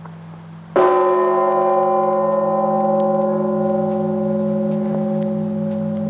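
A large 7,150 kg church bell is struck once, about a second in. Its many overtones ring on and slowly fade over a deep, pulsing hum left from the previous strike.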